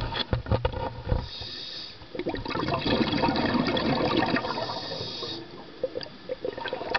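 Scuba diver breathing through a regulator underwater: bubbling, gurgling exhalations alternating with two stretches of steady hissing inhalation.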